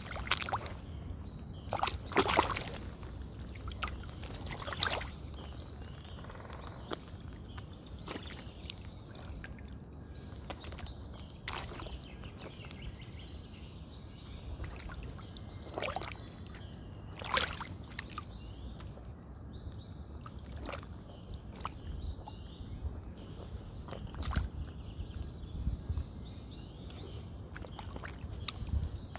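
Mud-caked sneakers stepping, splashing and squelching in a shallow muddy puddle, in irregular steps. The loudest splashes come about two seconds in and again a little past the middle.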